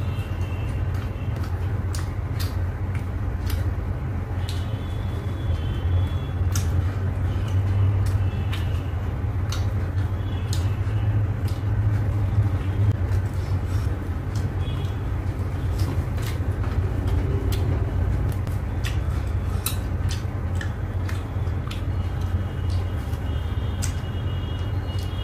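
Close-up eating sounds: frequent short, sharp clicks of chewing and biting meat off a mutton bone by hand, over a steady low rumble.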